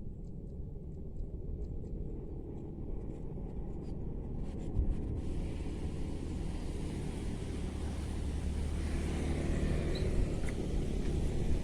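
A distant engine rumbles and grows steadily louder as it approaches, from about halfway through.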